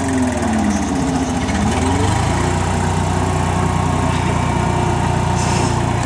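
Bulldozer engine running steadily as the machine is driven, with a tone that dips and then rises again in pitch in the first two seconds.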